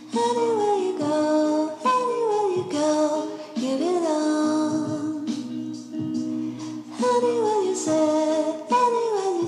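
Background music with a voice singing a melody in short falling phrases over steady held notes.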